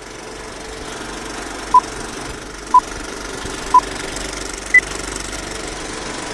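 Countdown beeps: three short, identical pips about a second apart, then a fourth, higher-pitched pip. Underneath runs a steady mechanical rattle and whir, like an old film projector running.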